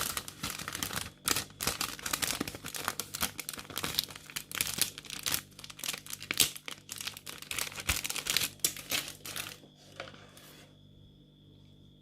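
Packaging being handled, crinkled and torn open by hand, a dense run of rustles and crackles that stops about three-quarters of the way through, leaving a quiet room.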